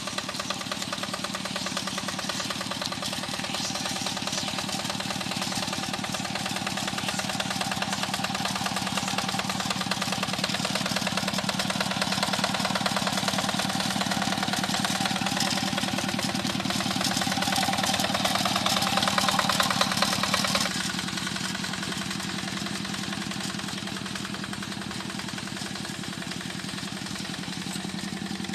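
Tractor engine running steadily while plowing a rice paddy, with a fast, even firing beat. It grows louder over the first two-thirds, then drops suddenly to a quieter, lower note, as if throttled back, and runs on evenly.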